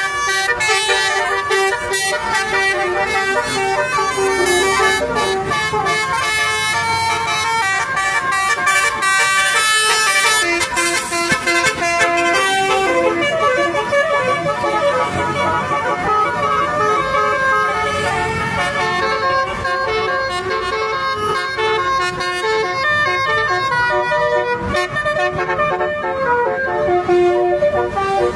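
Bus telolet horn, a multi-tone air horn, playing a long, unbroken run of quick melodic notes that step up and down in pitch.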